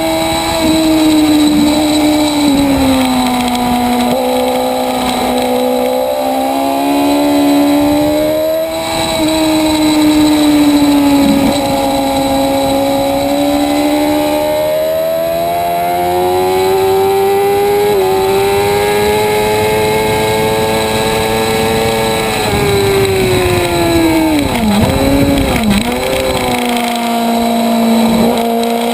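Motorcycle engine at track speed, its pitch climbing and dropping as it accelerates and shifts through the gears. Near the end there is a quick series of downshifts, heard as sharp dips and rises in pitch while braking for a corner.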